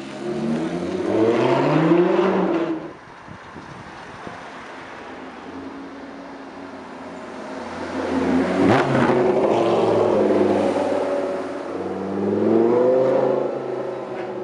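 Lamborghini Gallardo Super Trofeo race car's V10 engine accelerating hard, its pitch climbing in a loud pull that ends abruptly about three seconds in. It revs sharply again about nine seconds in and pulls away once more near the end.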